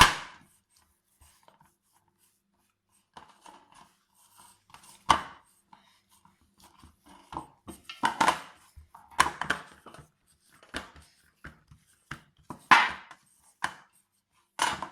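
A plate knocking and clattering on the counter at irregular intervals as cashew dough is kneaded on it by hand, the plate sliding about under the pressing.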